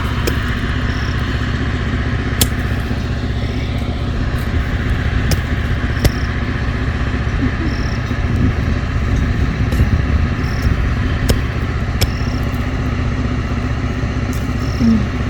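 Generator engine running steadily, with a few sharp clicks over it.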